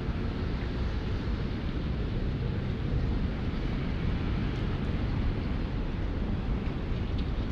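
Steady low rumble of city street ambience, mostly traffic noise.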